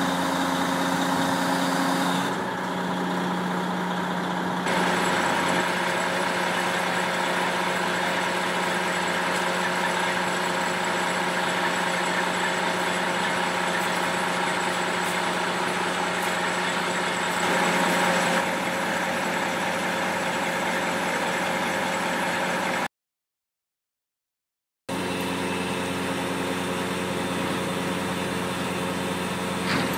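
Diesel engine of a truck-mounted mobile crane running steadily at a constant speed while it holds and lowers a heavy load; the sound cuts out completely for about two seconds about two-thirds of the way through.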